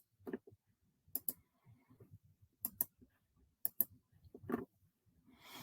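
Quiet sharp clicks coming in quick pairs, three times.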